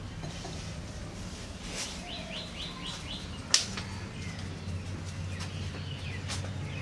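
Cotton cloth rustling as it is draped over a clay pot, with one sharp click about halfway through. A small bird chirps a quick run of about six short rising notes about two seconds in.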